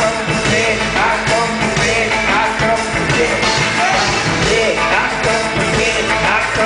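Live hip-hop played loud through a stage PA: a band and DJ beat with a rapping voice over it, heard from within the crowd.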